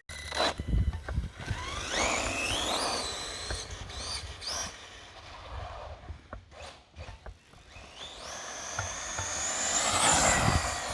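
Electric motor of a Redcat Volcano RC monster truck whining as it accelerates. The whine rises in pitch about two seconds in, then climbs again over a longer stretch from about eight seconds and falls away near the end.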